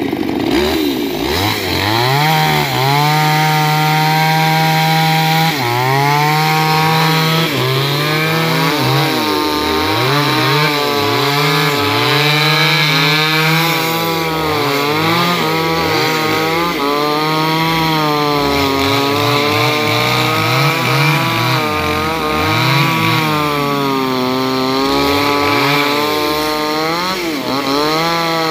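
Two-stroke chainsaw running at high revs while cutting through teak wood. Its engine pitch dips and recovers again and again as the chain bites in and frees.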